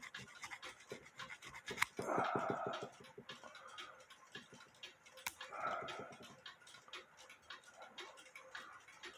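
Small metal parts of a cuckoo clock movement being worked by hand: irregular light clicks with a few short scraping, rubbing passages, about a second in, near the middle and near the end.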